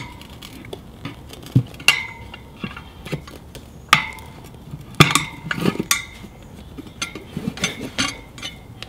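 Metal tire levers clinking against the spoked wheel rim as the bead of a worn Continental TKC-80 rear tire is levered off: several sharp metallic clinks, each with a short ring, spaced a second or two apart.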